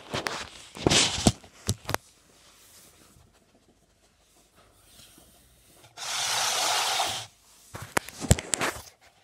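Rubbing and knocking right on a phone's microphone as the phone is handled close to a border terrier and its fur brushes past. A few sharp knocks come in the first two seconds, then a steady rubbing hiss lasts about a second from about six seconds in, and more clicks follow near the end.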